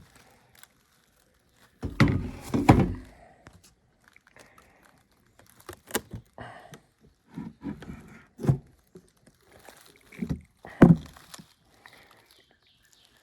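Beehive frames and boxes being handled and pulled apart: a series of knocks and thunks, with scraping and rustling between them. The loudest group of knocks comes about two seconds in, and single thuds follow later, the sharpest one near the end.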